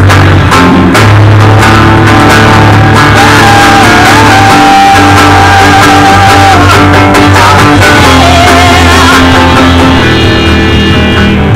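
Electric and acoustic guitars played loudly together in a rock band rehearsal, with a held melody line that wavers in pitch partway through.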